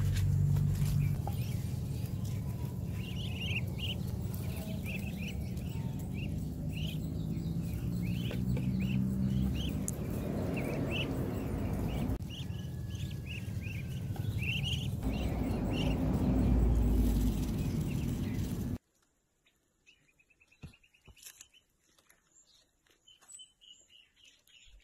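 A flock of ducklings peeping, many short high peeps in quick succession over a steady low rumble. The sound cuts off sharply about three-quarters of the way through, leaving only faint ticks and the odd chirp.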